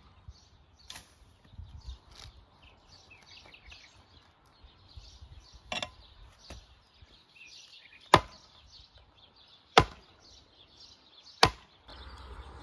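Long-handled digging tool swung down and chopping into the ground: four sharp strikes roughly two seconds apart in the second half, with a few lighter knocks before them. Birds chirp in the background.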